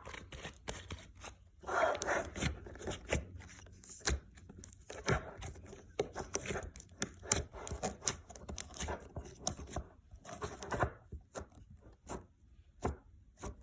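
Slime being squished, poked and stretched by hand, giving irregular sticky clicks, crackles and small pops.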